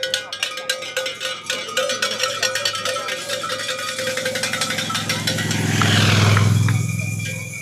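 A motor vehicle passes close by, its engine and tyre noise swelling to a peak about six seconds in and then fading. Steady rapid ticking runs underneath throughout.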